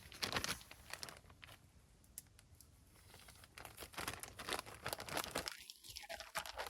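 Crinkling and rustling of a plastic bag holding bannock dry mix as it is handled. A short loud bout of crinkling comes just after the start, then quieter, irregular crackles build up again from about halfway through.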